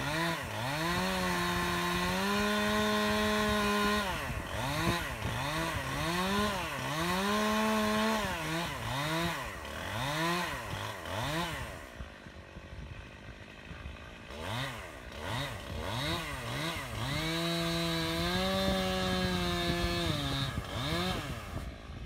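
Stihl chainsaw cutting into an oak limb, revved up and held at full speed for a few seconds at a time (about a second in, around eight seconds in, and again near the end), with quick revs up and down in between.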